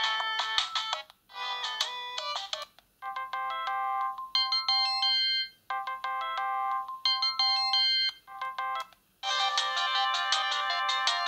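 Siemens M55 mobile phone playing polyphonic ringtone melodies, thin and without bass. The melodies stop and start with brief pauses, as one short snippet follows another.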